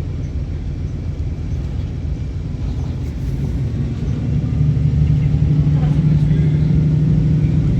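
Inside a city bus under way: a steady low rumble from the engine and running gear. About halfway through it grows louder and a strong low hum comes in.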